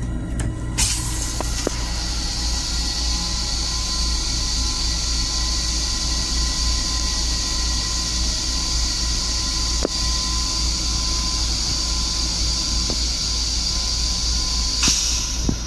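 Long Island Rail Road M7 railcar toilet flushing: a steady high hiss starts about a second in, runs for about fourteen seconds and cuts off sharply near the end, over a low steady hum.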